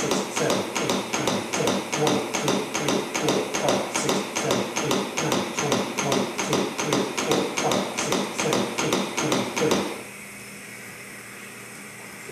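Chest compressions on a CPR training manikin: an even run of knocks at about two a second, one for each push on the manikin's chest. The compressions stop abruptly about ten seconds in, leaving a faint steady room hum.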